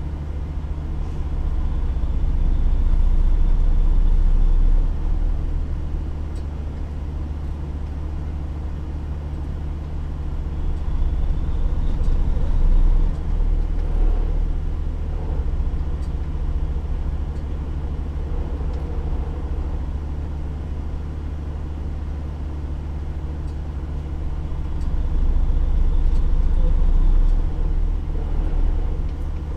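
Semi-truck diesel engine idling, a steady low hum that swells louder a few times.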